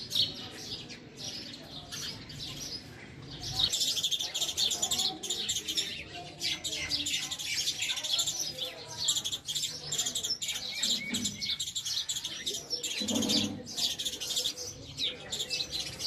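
House sparrows chirping: a few scattered chirps at first, then a dense, rapid stream of overlapping chirps from about four seconds in.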